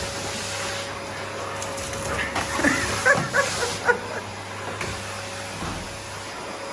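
A pit bull makes a cluster of short, high-pitched yelps and whines between about two and a half and four seconds in, over a steady mechanical hum.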